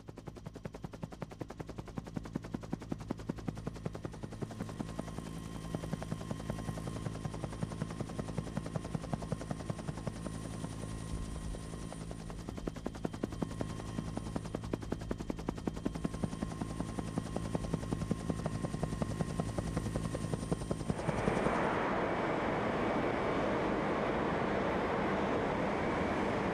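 Helicopter rotor and engine, heard from aboard: a rapid, even chopping over a steady turbine whine. About 21 seconds in it cuts to a louder, steady rushing roar of cast-house noise where molten iron is running down the furnace runner.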